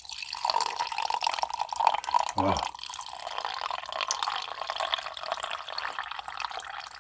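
Freshly opened carbonated strawberry ade fizzing close to the microphone: a dense, fine crackle of bursting bubbles, with a brief low sound about two and a half seconds in.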